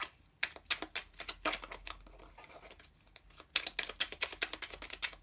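Lenormand cards being shuffled by hand: runs of quick card flicks and slaps in two spells, one starting about half a second in and another about three and a half seconds in, stopping suddenly at the end.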